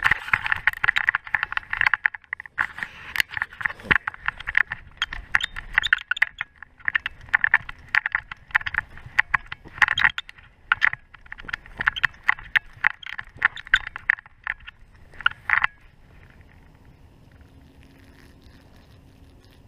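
Metal tags and hardware on a dog's harness and collar jingling and rattling in quick, irregular clinks as the dog moves, stopping about sixteen seconds in.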